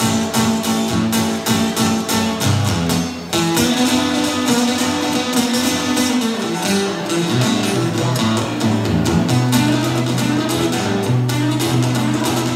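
Acoustic guitar playing an instrumental blues break, picked bass notes under strummed chords, with a brief dip in the playing a little over three seconds in and then a repeating bass-note pattern.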